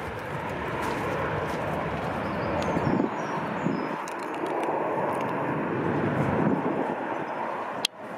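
Twin-engine jet airliner's engines at take-off power as it climbs away, a steady rushing noise. A sharp click and a brief drop in level come near the end.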